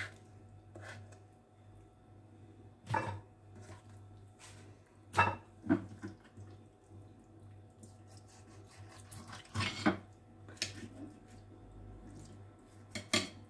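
A handful of short, separate knocks and wet squishes as raw liver is cut on a plastic cutting board and pieces of offal are handled on a plate, over a low steady hum.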